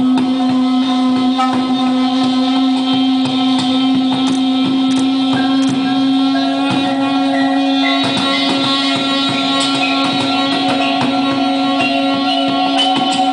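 Instrumental music: a low note held steady as a drone, with sustained tones layered above it and frequent short plucked or struck notes.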